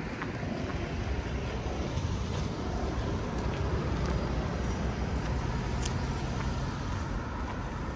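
Steady rumble of road traffic, swelling slightly around the middle.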